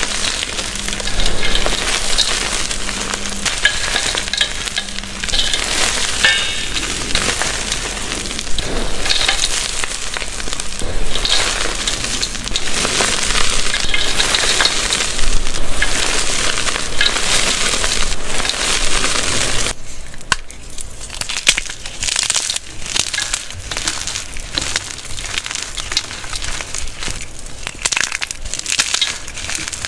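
Gym chalk crushed and crumbled in the hands, a dense, continuous crunching crackle. About twenty seconds in it changes to a sparser crackle of separate small snaps as chunks of glittery chalk are squeezed.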